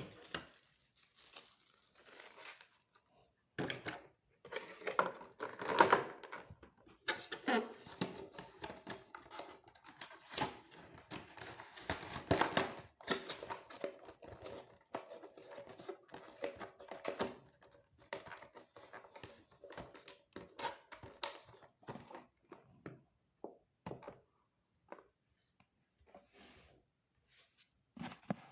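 Packaging being unwrapped by hand: irregular crinkling and tearing, with occasional light knocks, busiest in the middle and thinning to scattered ticks near the end.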